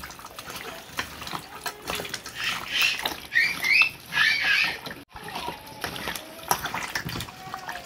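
Wet squelching and squishing of raw meat and a dark cassareep marinade being kneaded and turned by hand in a metal bowl, in uneven bursts.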